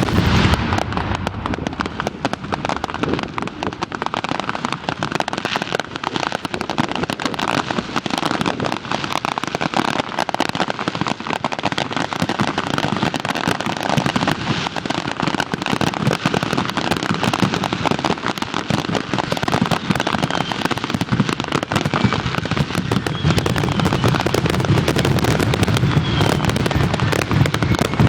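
Fireworks going off in a dense, continuous barrage of bangs and crackling pops.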